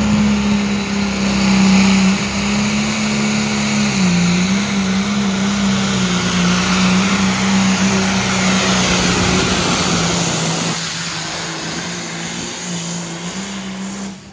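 John Deere pulling tractor's diesel engine running flat out under load as it drags the weight sled. Its pitch holds steady apart from a brief dip about four seconds in. It fades somewhat and then cuts off abruptly near the end as the pull stops.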